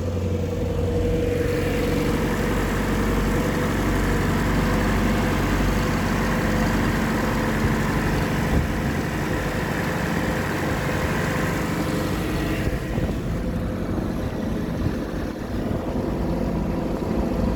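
Ford 2.3 L four-cylinder inboard boat engine running steadily under way. It is overheating because no cooling water is moving, which the owner thinks could be the impeller or the water pump. A higher hiss over the engine drops away about twelve seconds in.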